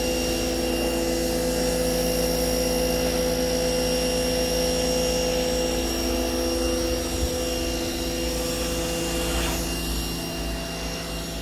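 Electric pressure washer's motor and pump running steadily with a constant hum, water spraying from the wand as a car is rinsed.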